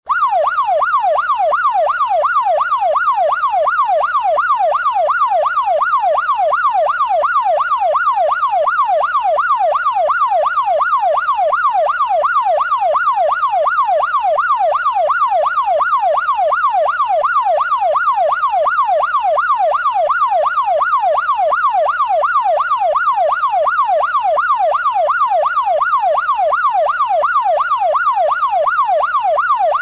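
Electronic police siren in fast yelp mode: a single tone sweeping rapidly up and down, about twice a second, steady and without a break.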